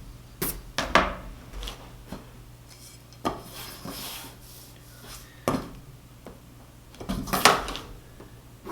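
Pencil and drafting tools working on a drafting board: light scratching and rubbing with several sharp clicks and knocks, the loudest about seven and a half seconds in.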